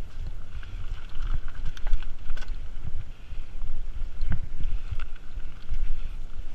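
A mountain bike rolling over a rocky singletrack trail, with scattered clicks, knocks and rattles from the bike over a steady low rumble of wind on the microphone.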